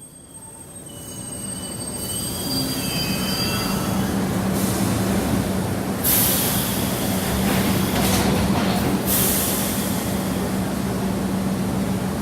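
Subway train running, growing louder over the first two seconds, with thin high wheel squeals in the first few seconds over a steady rumble and hum. Two loud bursts of hiss come about six and nine seconds in.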